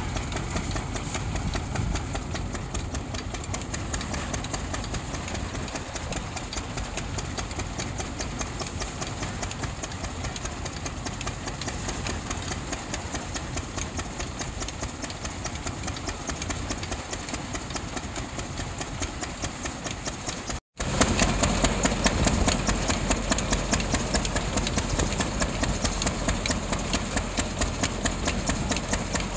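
Belt-driven peanut thresher running, powered by a stationary engine, with a steady engine chug and the rattle of the threshing machine. The sound cuts out for an instant about two-thirds of the way through and comes back louder and heavier.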